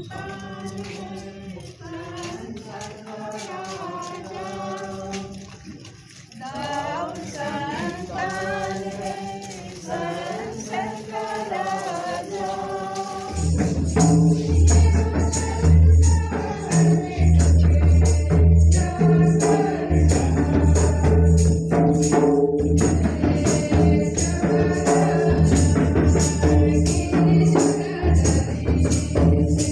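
A congregation singing a hymn together. About halfway through, a drum and a tambourine come in, keeping a steady beat under the singing.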